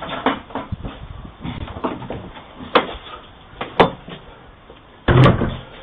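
Irregular knocks and thuds on a hard surface, with a louder bang about five seconds in, picked up through a doorbell camera's microphone.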